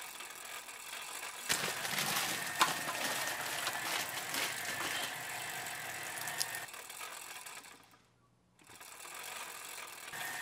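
Bicycle chain, sprocket and ratcheting hub of a pedal-powered circular saw, clattering with quick ratchet clicks as the spinning blade cuts into a tomato. The sound grows louder about a second and a half in, then cuts out briefly about eight seconds in.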